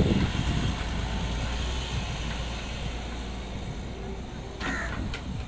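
Volvo EW145B wheeled excavator's diesel engine running with a steady low hum while the machine slews round and lowers its bucket. Two short sharp sounds come near the end.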